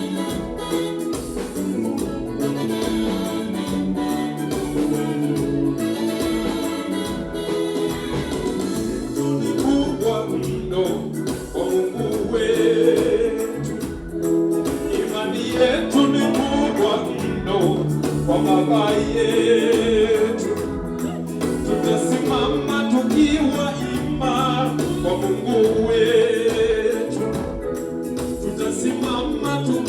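A church choir singing a gospel song over instrumental backing with a steady beat; the voices come in more strongly partway through.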